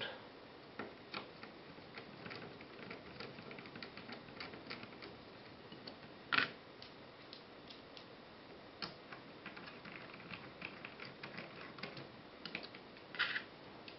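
Faint, scattered small clicks and ticks of a 3 mm hex driver turning 4 mm bolts into a VESA mount plate, with one sharper click about six seconds in and a short cluster of clicks near the end.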